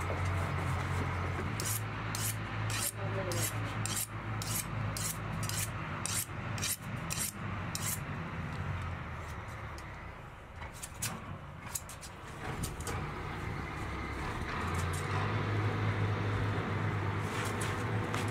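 Sharp metal clicks of hand sheep shears, about two a second, over the steady low hum of a tractor engine running.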